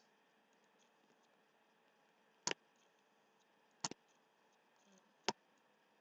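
Three sharp computer mouse clicks, about a second and a half apart, over faint room tone.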